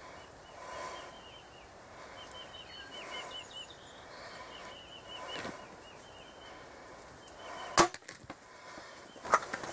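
A compound bow shot at a wild turkey gobbler: one sharp crack of the string and the arrow striking, about eight seconds in. Just before the end, the hit tom's wings begin to flap.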